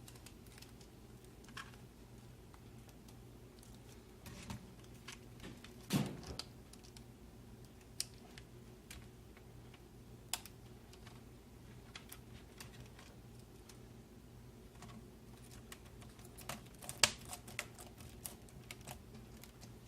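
Replacement laptop keyboard being pressed down into its clips: scattered plastic clicks and taps, irregularly spaced, with a faint steady low hum beneath.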